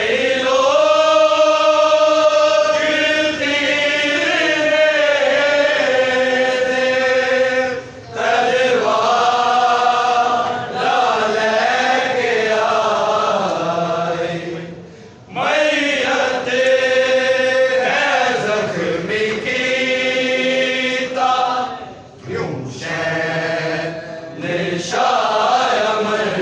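Male voices chanting a mourning lament (noha) in long, wavering held lines, breaking off briefly about every seven seconds.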